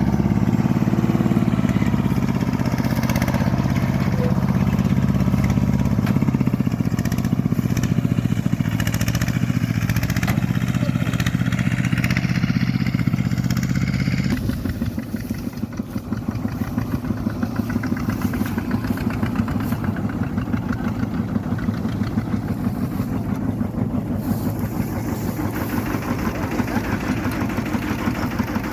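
Small engine on a rice washing machine running steadily. About halfway through, its loud low hum drops and turns quieter, leaving a fast, even putter.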